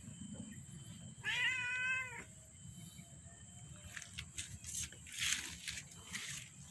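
Domestic cat meowing once, a single wavering meow about a second long, followed by a few faint rustling noises.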